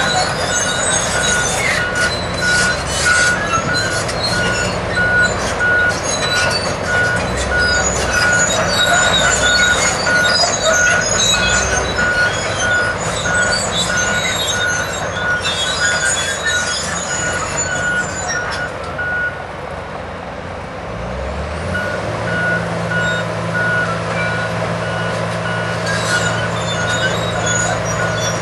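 Diesel engines of tracked heavy equipment, side-boom tractors and an excavator, running under work, with a backup alarm beeping over and over. The beeping breaks off for a few seconds after about two-thirds of the way through and then resumes, as one engine settles to a steady pitch; metallic clatter comes and goes before the break.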